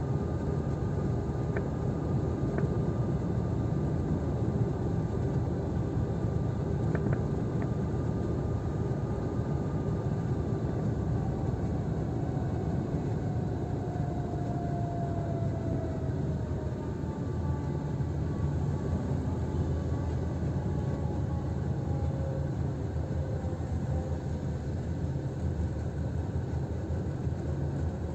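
Steady low rumble of a car driving on the road, heard from inside the cabin: tyre and engine noise, with a faint engine whine that drifts in pitch and a few light clicks in the first several seconds.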